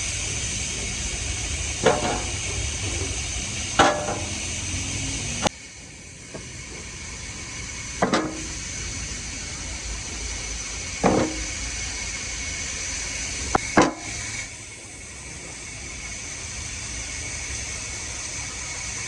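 Sharp knocks on wood, about six of them a few seconds apart, over a steady hiss.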